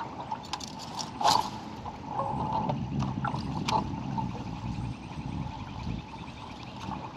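Outdoor noise on a small aluminium fishing boat on a lake: a low rumble of wind and water, a few sharp clicks, and a faint fast ticking in the middle, while a buzzbait is being retrieved.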